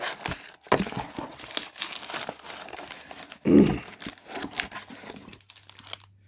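Packing peanuts and packaging rustling and crinkling as hands dig them out of a shipping box, with one brief, louder low sound about three and a half seconds in. The rustling stops shortly before the end.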